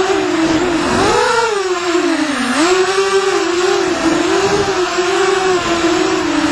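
FPV racing quadcopter's motors and propellers buzzing, the pitch swinging up and down with the throttle: a sharp rise about a second in, then a dip.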